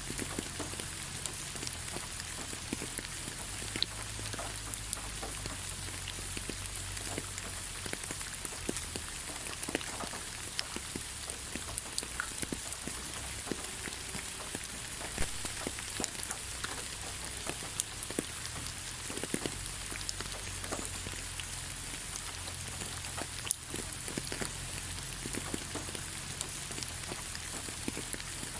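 Steady rain: an even hiss with many separate drops ticking at irregular moments.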